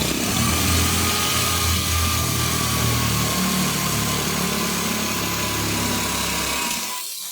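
Electric drill running with a diamond bit grinding into a wetted ceramic bowl: a steady motor whine over a gritty grinding hiss. The whine sags a little in pitch, and the drill stops near the end.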